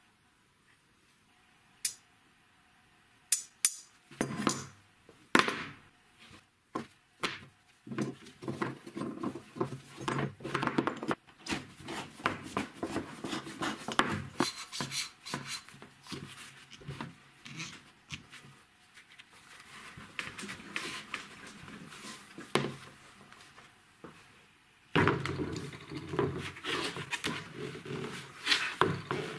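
Handling noise of a homemade strap wrench built from square metal profile pipe and a toothed rubber belt: metal parts clicking and knocking against each other and on a wooden bench. From about 25 seconds in, a denser rubbing and knocking as the wrench and an orange plastic sewer pipe are handled.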